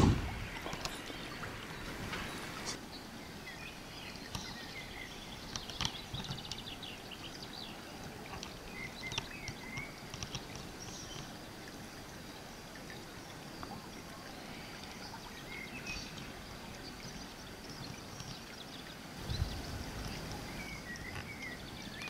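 Outdoor ambience: a steady hiss of background noise with scattered faint, high chirps and ticks. A sharp click comes at the very start and a low thump near the end.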